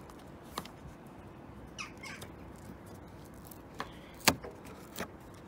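Plastic windshield-side trim on a Ford Fiesta air cowl being worked loose by hand: a few scattered small clicks and creaks, with one sharp snap a little past four seconds in as a clip lets go.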